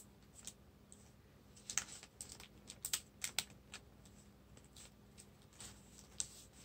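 Faint, irregular light clicks and taps of craft items and paper being handled on a tabletop, most frequent in the middle, over a faint steady hum.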